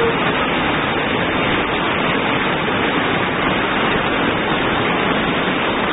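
Heavy rain pouring down and floodwater rushing past, a steady, loud hiss with no let-up.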